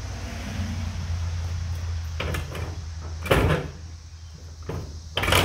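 A heavy steel safe being dragged across a pickup's bed and tipped over the tailgate: a low rumble for about three seconds, then several heavy knocks, the loudest a little past three seconds in and again near the end.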